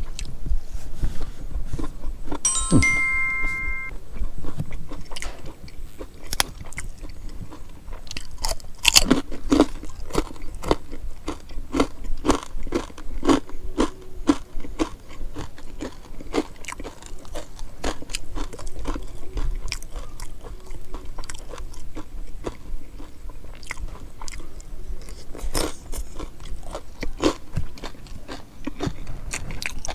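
Close-miked chewing and crunching of food, with many sharp crunches, as a person eats spicy Thai papaya salad with shrimp. A short chime of a few steady tones sounds about three seconds in.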